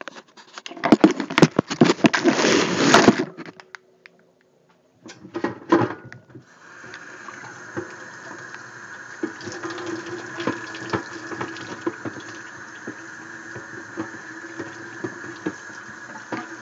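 Kitchen tap running as water is flushed through a flexible aquarium canister hose in the sink. It splashes loudly for the first three seconds, then after a short pause runs steadily from about six seconds in, with small knocks of the hose against the sink.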